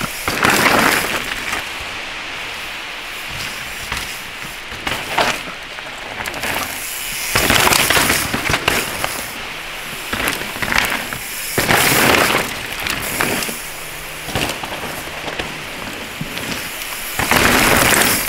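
Mountain bike tyres skidding and tearing through loose dirt and leaf litter as the rider passes the camera, in about five loud bursts of crackling noise, with the bike rattling over the rough ground between them.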